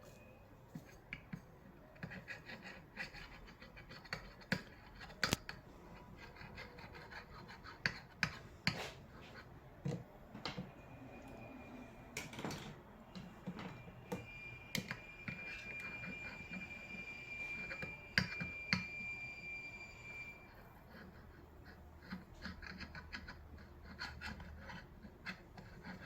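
Soldering iron working solder over a fluxed brass lamp vent cap to tin it: faint scraping and rubbing with scattered light clicks and taps.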